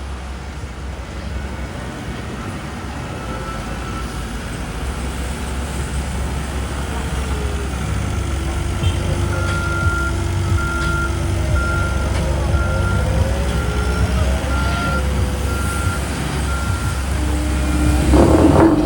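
CAT tandem asphalt roller's diesel engine running with a steady low rumble that grows louder as it comes closer. About halfway through, a back-up alarm starts beeping steadily, about every 0.7 s, for several seconds.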